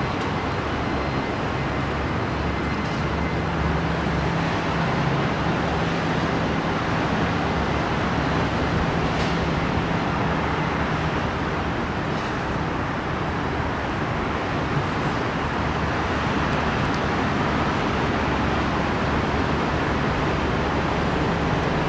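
Steady roar of surf and city traffic heard from a high balcony, even and unbroken, with a low steady hum underneath that is strongest in the first third.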